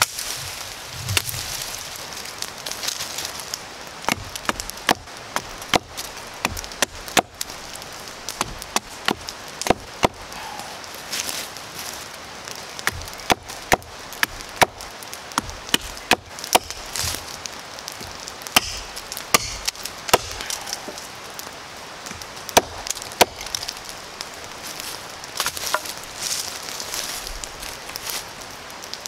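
A hatchet chopping wood: a string of sharp, irregular strikes, about one or two a second, as it cuts into a branch and shapes the end of a stick held against a log.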